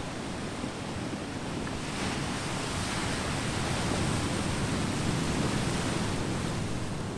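Ocean surf washing in over a boulder beach, a steady rush that swells about two seconds in and eases off near the end.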